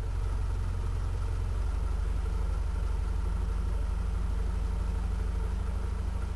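Carburetted 2.4-litre four-cylinder engine of an Opel Rekord E2 wagon (Omega A C24NE engine on a Varajet II carburettor) idling steadily, heard at the exhaust with an even beat.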